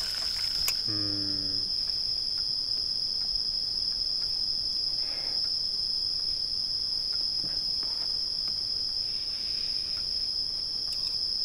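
Steady, high-pitched chorus of night insects chirring without a break. A brief low hum sounds about a second in.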